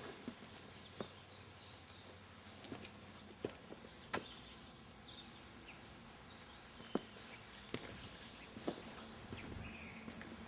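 Faint background noise with birds chirping in the first few seconds and about five isolated sharp taps or knocks, spaced a second or more apart.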